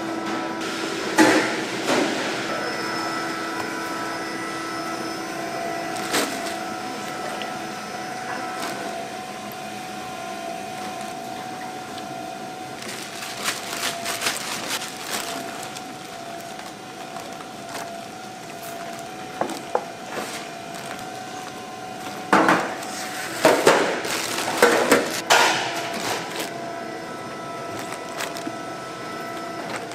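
Food-factory ambience: a steady machine hum made of several held tones, broken by bursts of clatter and handling noise from kimchi being packed into plastic-lined tubs, with the busiest run of clatter near the end.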